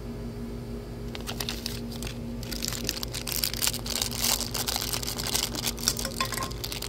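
Shiny plastic blind-bag wrapper crinkling and crackling as hands pull it open, a dense run of crackles starting about a second in.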